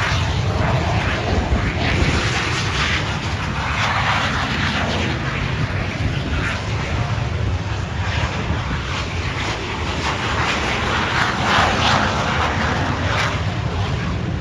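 Aircraft engine noise from a plane flying at an air show: a steady, loud rush with some swells in level.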